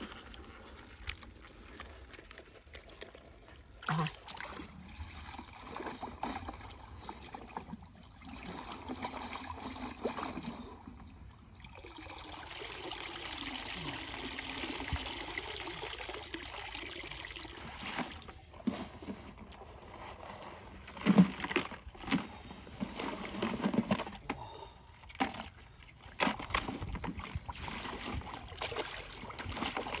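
Water trickling, pouring and sloshing, with a steadier pouring stretch in the middle and a few sharp knocks later on.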